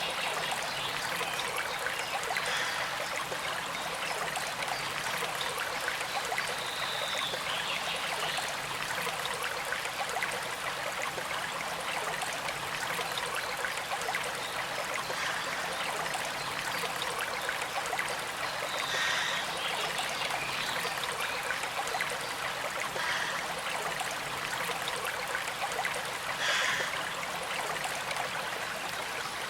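Small stream flowing steadily, a gentle, even trickle of moving water with a few brief brighter splashes.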